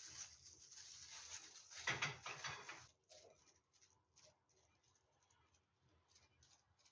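Plastic-gloved hands rustling and squelching as they rub marinade into pieces of fish, loudest about two seconds in. After about three seconds this gives way to faint, irregular clicking from a hand-held spice grinder being twisted over the fish.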